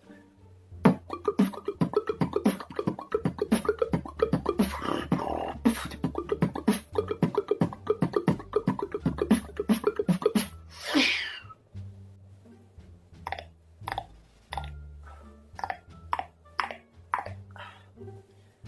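Beatboxing built from tongue clicks: rapid, rhythmic clicks over a low bass line, with a short swooping sound about eleven seconds in and sparser, spaced clicks after it.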